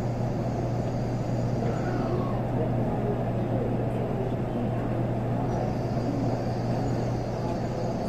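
Shinkansen train noise at a station: a steady rumble with a constant low hum.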